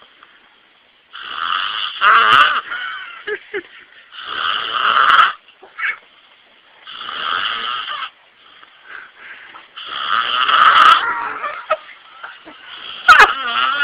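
Man snoring in his sleep: five long snores about three seconds apart, each swelling louder, with a sharp, louder snore near the end.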